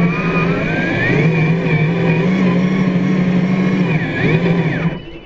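Electric motor and geared drivetrain of a scale RC crawler truck whining under load as it climbs loose sand, the pitch rising and falling with the throttle. It cuts off about five seconds in.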